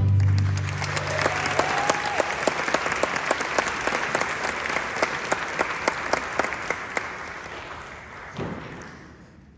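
Small audience applauding at the end of a mariachi song, while the band's last low note rings out in the first second or so. The clapping thins and fades away by the end.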